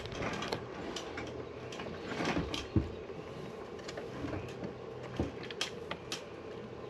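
Freshly rebuilt GM 5.3 Vortec V8 idling with a steady hum and a mechanical ticking, the lifter noise the owner hears on this low-oil-pressure first run. A few separate clicks or knocks sound over it.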